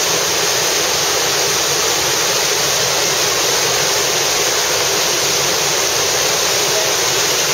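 Steady, loud rush of flowing water.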